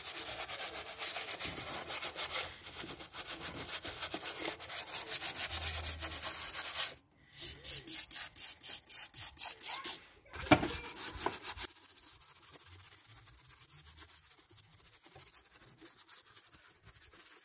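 Bristle paintbrush scrubbing engine cleaner into the grime on a car engine and its plastic cover: rapid scratchy brushing, then distinct strokes about three a second, one sharp knock about ten seconds in, and fainter brushing near the end.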